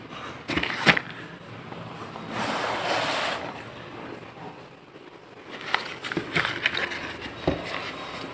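Small cardboard boxes and a paper carrier being handled on a tabletop: two sharp knocks about half a second in, a paper rustle around three seconds, then a run of light taps and scrapes near the end.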